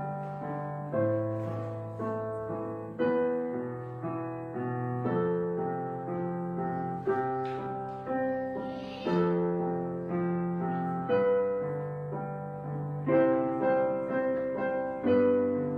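Slow solo piano music, with a new chord or note struck about every two seconds and left to ring and fade.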